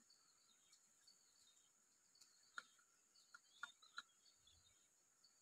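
Near silence: faint outdoor ambience with a steady high background and a few soft clicks near the middle.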